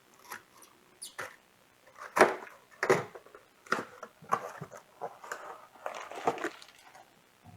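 Irregular rustling, crinkling and light knocks of a cardboard and plastic battery package being handled and opened, in short uneven bursts.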